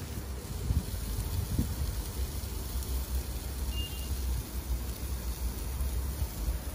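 Wind rumbling on the microphone, a steady, unevenly pulsing low rumble.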